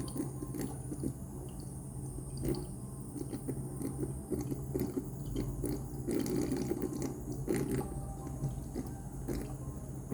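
Anti-gravity humidifier running: a steady low hum under a constant patter of water drops falling and splashing into its basin.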